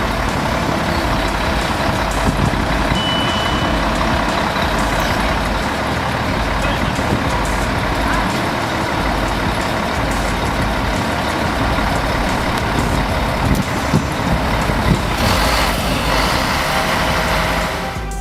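Heavy vehicle engine running steadily and loudly, with a short high beep about three seconds in.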